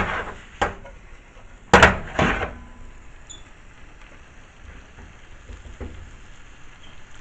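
A frying pan clattering on the stove as it is shaken and stirred: four sharp knocks in the first two and a half seconds, the loudest near the middle of them. After that comes a soft sizzle of ackee and saltfish frying with onion and tomato, with a few small ticks.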